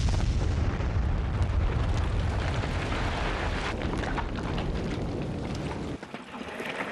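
Rock blasting in a mountainside for road construction: a long, deep rumble that eases slowly, with a few sharp cracks in it, then cuts off about six seconds in.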